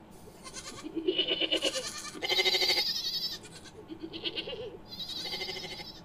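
Creature sound effect built from goat and ibex recordings: about four quavering, trembling bleats in a row, the loudest a little over two seconds in, and two shorter ones near the end.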